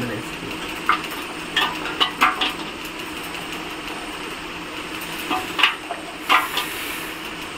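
Stainless-steel bowls clinking and scraping in short, light knocks, about eight of them spread over several seconds, as an ingredient is tipped from a small steel bowl into a large steel mixing bowl, over a steady background hiss.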